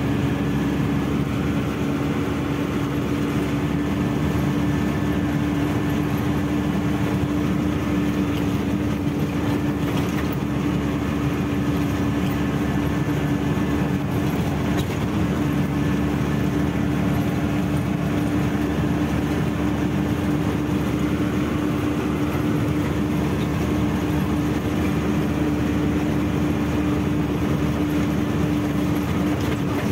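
Truck engine running steadily as the truck drives, a constant hum with an even low rumble and road noise.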